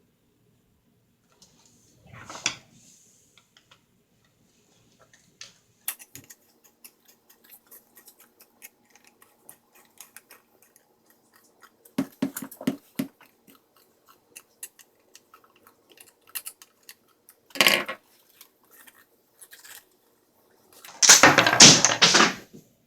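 Metal rifle parts being handled during disassembly: scattered small clicks and taps, a quick run of knocks about twelve seconds in, and a louder rattling clatter of metal near the end.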